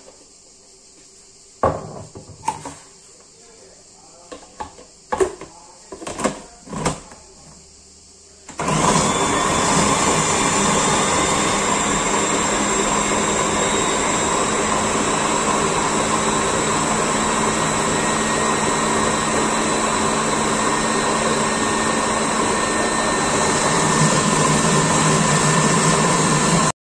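A few knocks and clicks as the food processor's lid is fitted. About eight and a half seconds in, the processor's motor starts and runs steadily, puréeing tomatoes, garlic and olive oil, then stops abruptly near the end.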